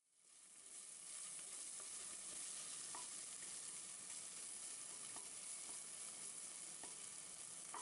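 Onion, tomato and herb masala sizzling in hot oil in a pot as it is stirred, a steady quiet frying hiss with a few light clicks of the spoon against the pot.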